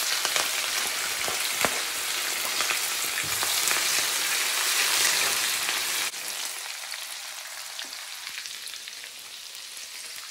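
Chopped spring onions sizzling in hot oil in a wok as a wooden spoon stirs them. The sizzle is loud and crackling for about six seconds, then drops suddenly and carries on quieter, fading.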